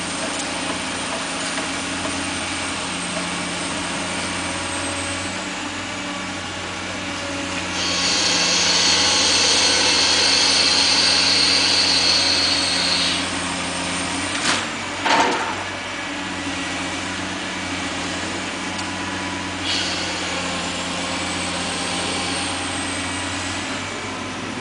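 High-reach demolition excavator's diesel engine running steadily, with a high hydraulic whine that grows louder for several seconds about a third of the way in as the boom works. A little past halfway come two sharp knocks close together, and the high whine returns near the end.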